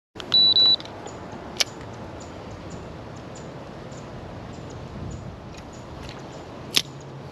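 Two short, loud, high-pitched electronic beeps as a camera starts recording, then a steady outdoor background hiss with a sharp click about a second and a half in and another near the end.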